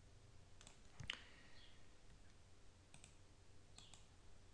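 A few faint computer mouse clicks over near silence, the clearest about a second in.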